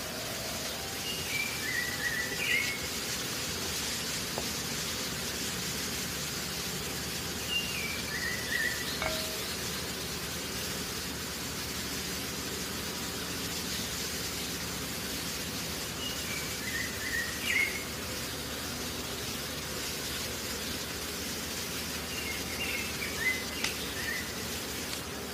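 A bird sings a short falling phrase of a few chirping notes, repeated four times several seconds apart, over a steady background hiss.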